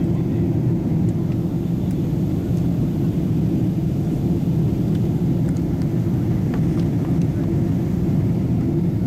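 Steady low drone inside the passenger cabin of a Boeing 777-300ER on descent: its GE90 engines and the airflow over the fuselage, heard from a window seat.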